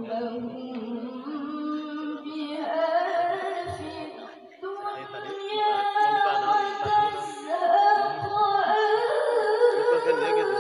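A female voice reciting the Quran solo in the melodic tilawah style, unaccompanied, with long held notes and ornamented runs and a brief break about four seconds in.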